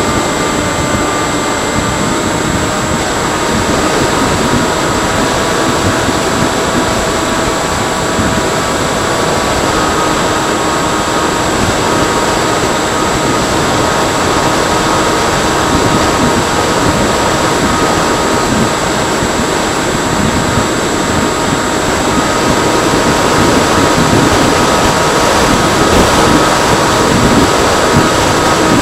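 Motor of a Freewing Seagull radio-controlled model plane running steadily in flight, with wind noise rushing over the microphone. The motor's whine steps up and down in pitch a few times as the throttle changes.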